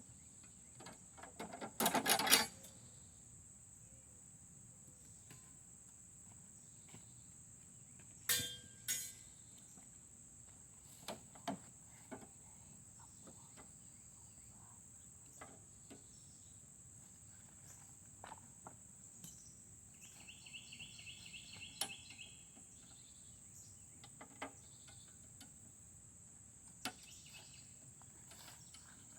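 Steady high-pitched drone of insects, with scattered metallic clicks and rattles of pliers working zip ties and a brake cable off a lawn mower; the loudest clatters come about two seconds in and about eight seconds in. A brief rapid chirping trill sounds about twenty seconds in.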